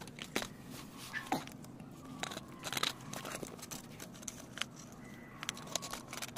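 Irregular light clicks and knocks, a dozen or so, from handling around a car's rear drum brake.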